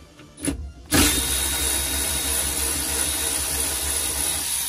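A handheld power tool starts about a second in, runs steadily and loudly at an even pitch, and cuts off abruptly near the end, most likely undoing a steering column bolt.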